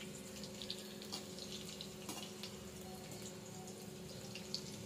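Kara sev strands deep-frying in hot oil in a kadai, a faint steady sizzle with scattered small crackles, under a low steady hum.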